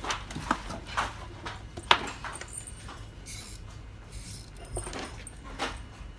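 Scattered clicks and knocks at an uneven pace, the loudest a single sharp knock about two seconds in.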